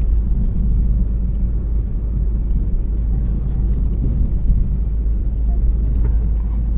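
Steady low rumble of a car driving at road speed, heard from inside the cabin: engine and tyre road noise.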